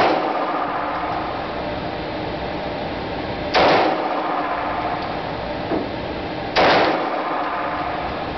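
Bersa Thunder Pro 9mm pistol fired twice, about three seconds apart, each shot ringing briefly off the walls of an indoor range, over steady background noise. The echo of the previous shot is dying away at the start.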